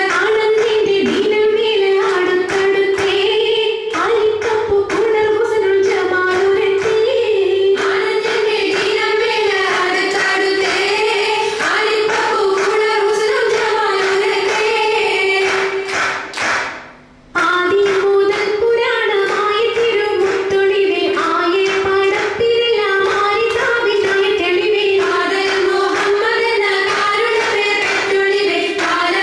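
Oppana song sung to rhythmic hand clapping, over a steady held note. The sound breaks off briefly about seventeen seconds in, then resumes.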